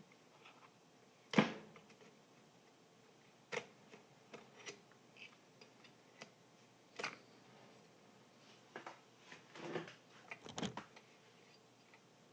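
Hands and tools handling a speaker on the bench during a foam-edge repair: scattered small taps and knocks, the loudest about a second and a half in, with a short run of scrapes and knocks near the end.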